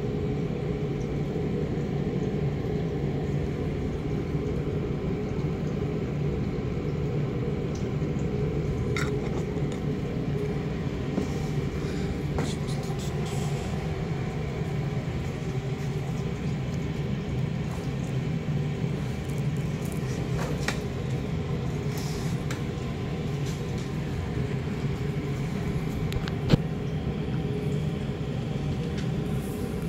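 Steady low mechanical rumble with a hum, unchanging throughout, broken by a few light clicks and taps, one sharper tap near the end.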